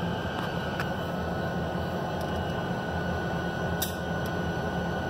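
Steady low engine rumble, heard from inside a car.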